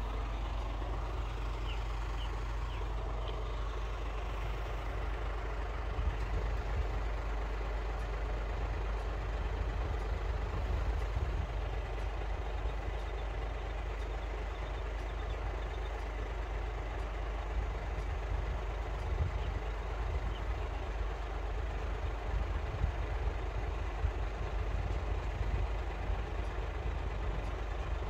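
Steady rumble of road traffic: a lorry and cars idling in a queue at the lowered level-crossing barriers.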